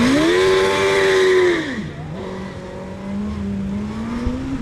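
Open-wheel autocross racing car's engine revving hard under acceleration, then dropping sharply in pitch about two seconds in as it eases off the throttle. It then runs at lower revs, slowly picking up again.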